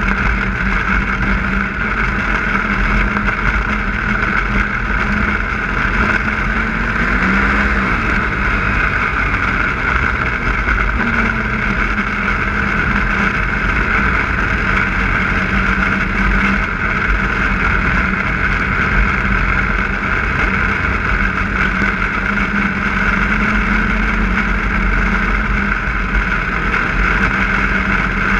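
Snowmobile running at a steady cruising speed, its engine note holding even, with a brief rise and dip in pitch about seven seconds in.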